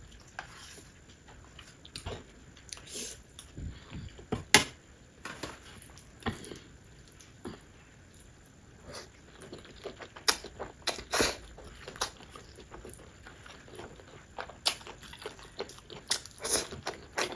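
Close-up chewing of spicy instant noodles, with scattered wet mouth smacks and clicks, a few of them louder.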